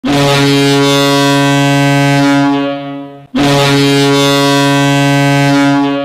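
Boston Bruins goal horn sounding two long, steady blasts of about two and a half seconds each, the second starting just after the first dies away.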